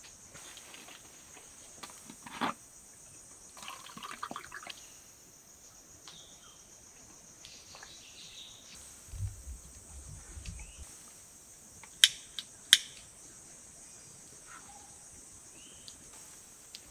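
Insects droning steadily at a high pitch in forest ambience, with scattered rustles and knocks from nearby movement and two sharp clicks about twelve seconds in, the loudest sounds here.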